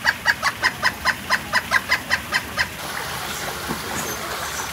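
A woodpecker calling in a rapid, even series of sharp notes, about five or six a second, which stops about two and a half seconds in. A steady rush of running water follows.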